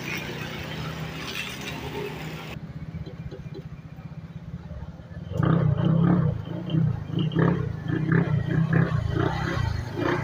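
Honda Click 125i's liquid-cooled single-cylinder scooter engine, freshly rebuilt with a new cylinder block, piston and rings, idling steadily. From about five seconds in it is revved in a quick series of throttle blips, roughly two a second.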